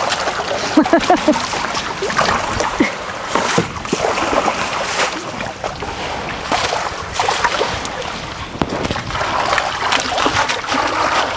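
Water splashing and trickling as a fishing net is hauled through a shallow canal, with many short, sharp splashes throughout.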